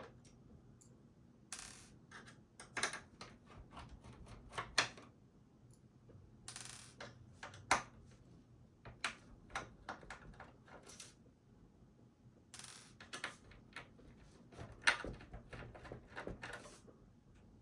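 Small screws being backed out of the computer's metal motherboard plate with a screwdriver: scattered light metallic clicks and ticks, with a few short rasping scrapes.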